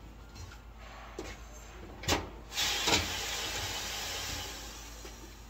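A wheel rim set down on a tire changer's turntable with a clunk, then a hiss of compressed air for about two seconds as the machine's pneumatic clamp jaws close on the rim, with a knock as they grip.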